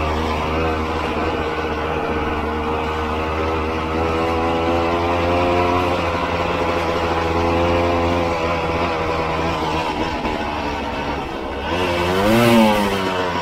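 Honda CRM250 two-stroke single-cylinder engine running steadily as the bike is ridden, its pitch drifting gently up and down. Near the end the revs rise and fall sharply in one quick swell.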